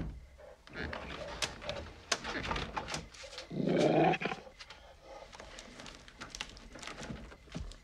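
A Dogue de Bordeaux gives one loud vocal sound about halfway through, rising in pitch, among scattered rustling and clicking sounds.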